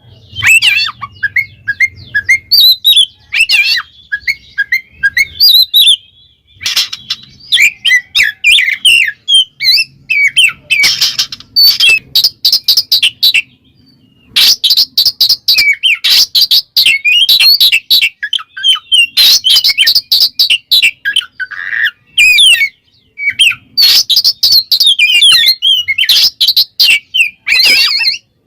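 Oriental magpie-robin (kacer) singing loudly in its full 'ngeplong' song, calling out a rival: fast, varied whistles and chirps in long phrases broken by brief pauses.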